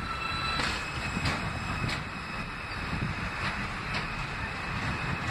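New York City subway train of R160 cars running on elevated track, over a steady rumble and hiss. Its wheels click sharply over rail joints about five times.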